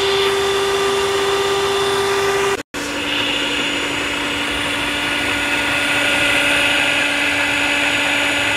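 Electric hand mixer running steadily, its beaters whisking cake batter in a bowl, with a constant motor whine. About two and a half seconds in, it cuts out for a moment and comes back at a slightly lower pitch.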